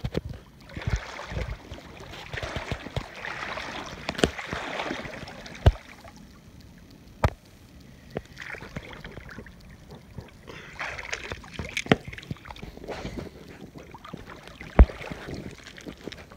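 Footsteps wading through a shallow gravel-bottomed creek: water swishing and splashing around the feet in two stretches, with several sharp knocks along the way.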